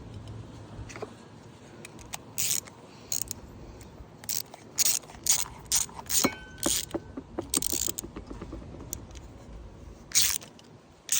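Hand work on small metal engine parts: irregular clicks and a dozen or so short scraping, rasping bursts as tools and carburetor pieces are handled.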